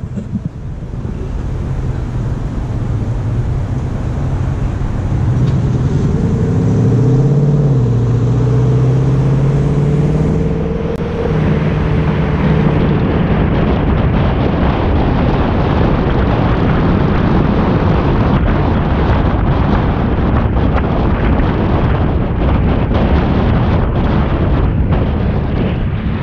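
A car's engine running as it drives through traffic, its low hum dipping and then rising in pitch about a quarter of the way in. From about halfway on, road noise and wind buffeting on the microphone take over as a steady rush with constant flutter.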